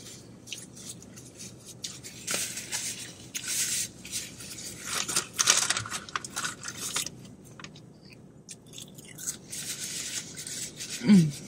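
Paper napkin rustling and crinkling in several short bursts, with quiet chewing and small handling clicks between.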